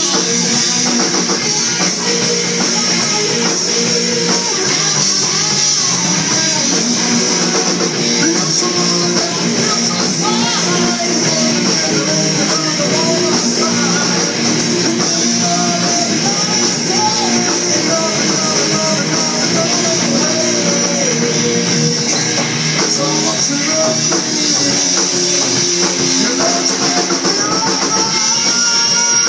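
Rock music with guitar and drums, playing loudly and without a break.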